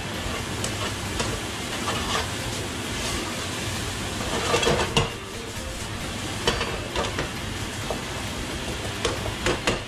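Shredded red cabbage sizzling as it fries down in a frying pan, turned with metal tongs that click and scrape against the pan now and then. The liquid has almost cooked off and the cabbage is starting to stick and caramelise.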